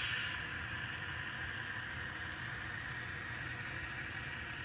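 N scale model train rolling steadily along the track, with a continuous running hum and wheel noise.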